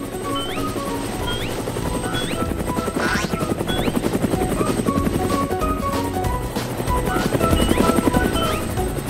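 Cartoon helicopter sound effect: rapid rotor chopping that swells about three seconds in and again near the end, over light background music.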